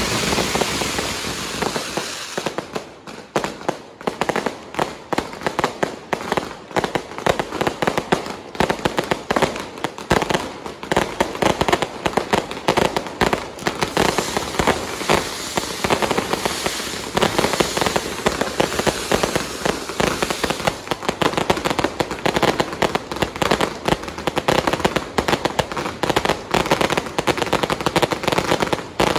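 Fireworks going off in a dense barrage. For the first couple of seconds there is a steady hissing rush of rockets and fountains. Then comes a long run of rapid crackling and popping bangs as rockets and aerial shells burst overhead.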